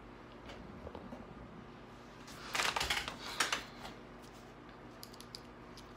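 Handling noise: a short rustle, about two and a half seconds in and lasting about a second, as the phone is moved, over a faint steady hum.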